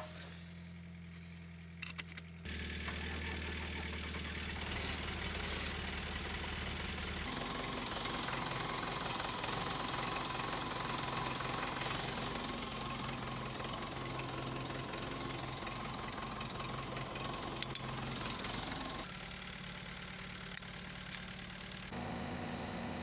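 Case 188D four-cylinder diesel engine of a Case 580CK backhoe running steadily, warming up to test a newly fitted thermostat. The tone and level shift abruptly a few times.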